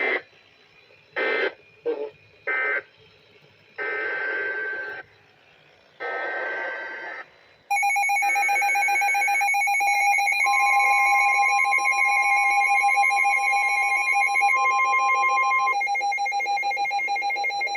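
Emergency alert broadcast. A few short bursts come first. About eight seconds in, the harsh, steady, pulsing attention tone starts and holds for about ten seconds, with a second higher tone joining for a while in the middle. The tone signals that a tornado warning message follows.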